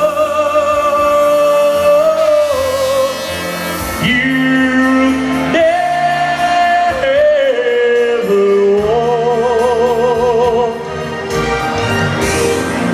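Live music through a stage PA: a man singing long held notes with a wide vibrato over a backing band.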